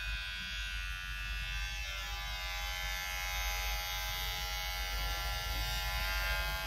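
Jupiter JP-809A electric hair clipper running with a steady whine, then cutting off with a click at the end as it is switched off.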